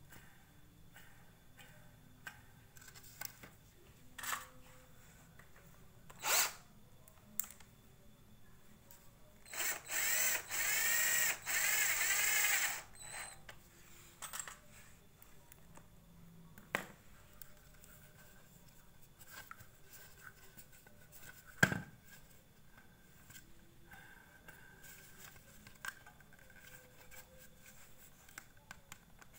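Cordless drill run in several short bursts over about three seconds, its motor whine rising and falling in pitch. Before and after, scattered light clicks and knocks of handling, one sharper knock about two-thirds of the way in.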